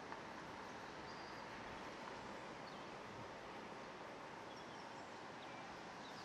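Faint, steady outdoor city background noise: an even hiss with a faint steady hum and a few faint, brief high chirps scattered through it.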